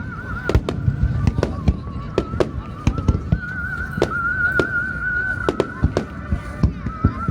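Aerial fireworks bursting in quick succession: sharp bangs a few times a second over a low rumble, with a wavering high whistling tone running through much of it.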